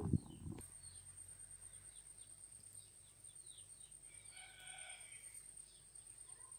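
Faint chickens calling in the background, with a short call right at the start and another about four and a half seconds in, and small birds chirping briefly in between.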